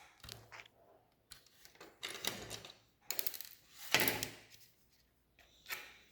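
Plastic Lego pieces clicking and rattling as they are handled and pressed together, in several bursts of quick clicks, the loudest about four seconds in.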